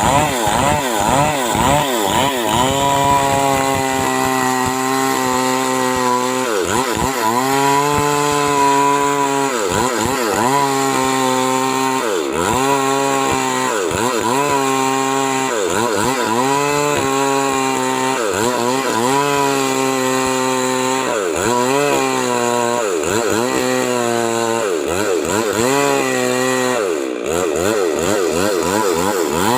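Stihl MS 382 two-stroke chainsaw cutting wood: the engine holds high at full throttle for a second or two, then drops and climbs back again, over and over.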